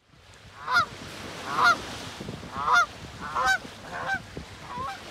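Canada geese honking: about six honks, roughly one a second.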